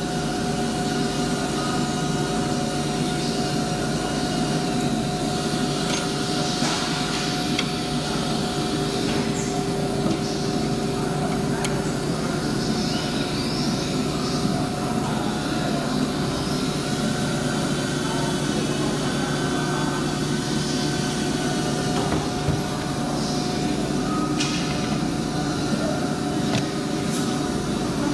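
Woodworking panel machinery, an edge bander or side drilling machine, running steadily: a constant mechanical hum with several fixed tones, broken by a few sharp clicks and knocks.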